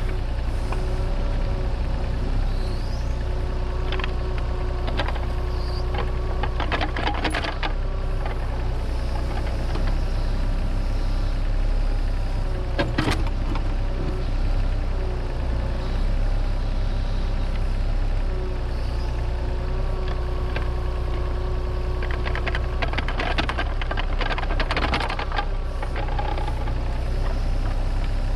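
Terex mini excavator's diesel engine running steadily while digging, its hydraulics whining on and off as the arm and bucket work. Knocks and scrapes of the bucket in the soil come several times, with a longer cluster near the end.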